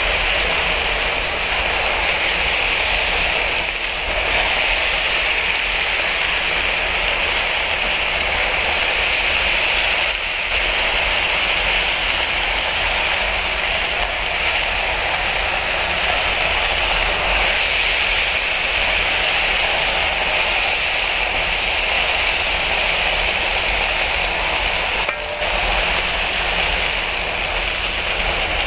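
Frozen bitter gourd slices with onion sizzling in hot oil in a wok: a steady, loud hiss as the stir-fry cooks, with a couple of brief dips as it is stirred.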